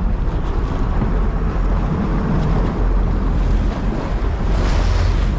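Wind buffeting the microphone over the steady low rumble and water wash of a sportfishing boat under way at sea, with a brief louder rush of noise about four and a half seconds in.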